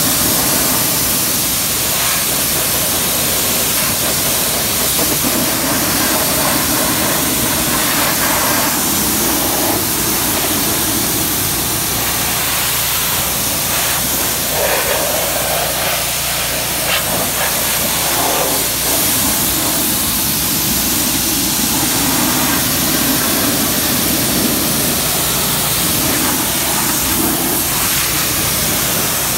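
Kranzle K1322TS electric pressure washer's water jet spraying mud off a truck's wheel well and tyre: a loud, steady hiss of spray, its tone shifting a little as the jet moves over the surfaces.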